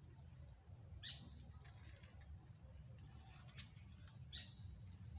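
Faint rustling and crackling of dry sugarcane leaves, with two short high bird chirps about three seconds apart, each dropping in pitch.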